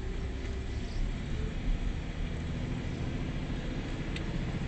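Scania 124/470 truck's straight-six diesel engine running steadily while driving, heard from inside the cab, with a few faint ticks near the end.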